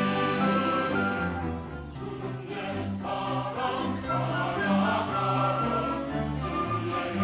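A large church choir singing in harmony, accompanied by a string orchestra of violins and cellos.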